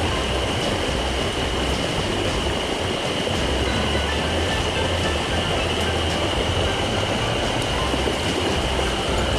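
Steady rushing of a small mountain stream, with a constant high-pitched tone above it and a low rumble of wind on the microphone.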